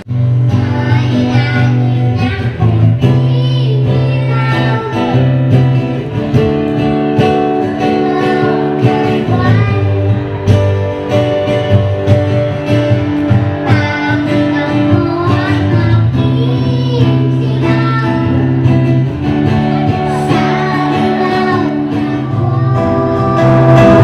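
A solo singer performing a song to strummed acoustic guitar, the melody sung over steady chords and bass notes.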